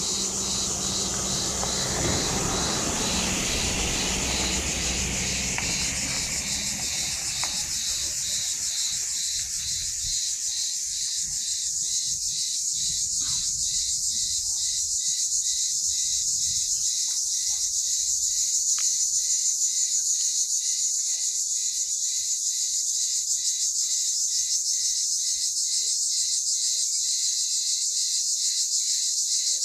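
Crickets trilling steadily in a high, even chorus, with a short note repeating about twice a second through the later part. A low rumble underneath fades out in the first several seconds.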